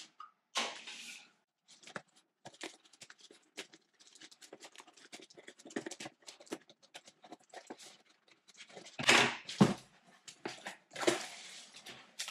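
Product packaging being opened by hand: scattered rustling, crinkling and clicks of plastic and cardboard, with a few louder crinkling bursts near the end.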